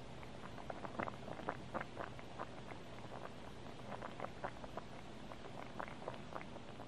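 Thick mushroom cream soup simmering in a pot, its bubbles popping irregularly several times a second over a low steady hum.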